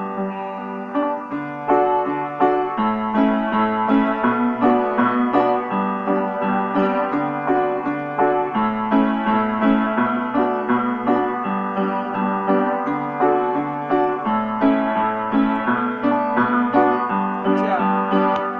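Upright piano played with both hands: a continuous flow of chords and melody notes over a moving bass line, without pauses.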